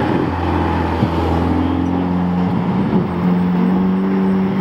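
Ferrari Roma's twin-turbo V8 running at low, steady revs as the car drives past and away.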